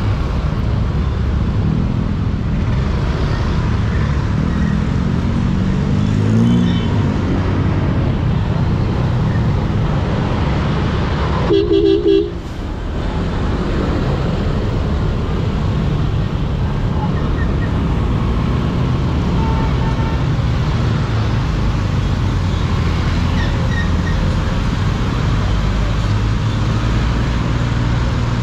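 Honda Click 125i scooter's single-cylinder engine running under steady riding and traffic noise, its pitch rising a few seconds in as the scooter speeds up. About twelve seconds in, a horn gives a short, loud beep.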